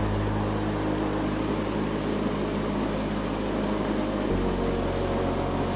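Steady rushing of flowing stream water, with a low rumble in the bass that shifts abruptly about four seconds in.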